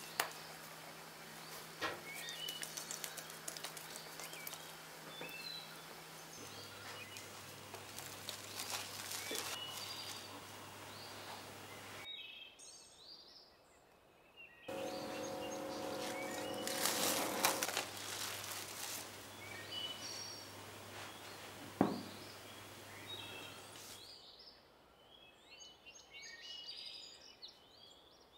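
Background ambience with scattered bird chirps over a steady low hum, broken by a few soft clicks. There is a near-silent gap about twelve seconds in, then a louder noisy stretch with a few steady tones for a few seconds.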